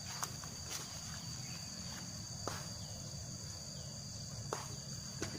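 Insects, crickets by the sound of it, chirring steadily in two high unbroken tones, with a few sharp clicks or snaps scattered through.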